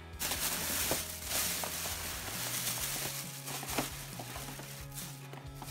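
Thin plastic shopping bag crinkling and rustling as hands open it and rummage inside, with scattered small crackles.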